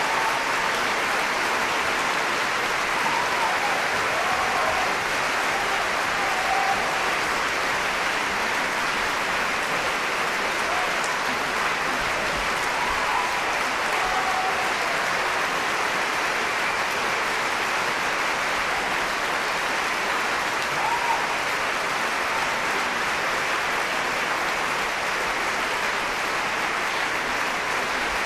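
A large theatre audience applauding steadily, a long unbroken ovation of many hands clapping at an even level.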